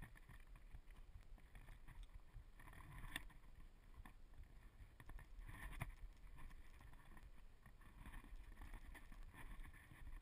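Faint, muffled handling noise and low rumble from a GoPro sealed in its waterproof case as it is moved about on rock, with two sharper knocks about three and six seconds in.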